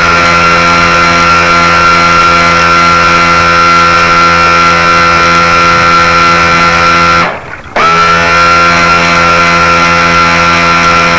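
Radio-controlled model boat's motor running steadily at speed, heard close up from on board as a loud, even whine. About seven seconds in it cuts out for half a second, then comes back, its pitch rising briefly as it picks up again.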